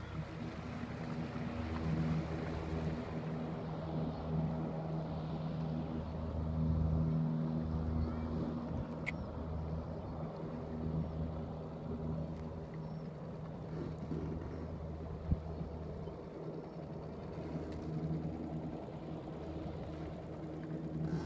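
Steady engine drone, a low hum that swells and fades, with a single sharp knock about two-thirds of the way through.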